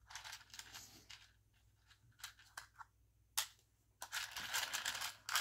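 Small plastic butterfly buttons clicking and rattling against each other as fingers rummage through a compartment of a plastic storage box. There are a few separate clicks midway and a longer stretch of rattling near the end.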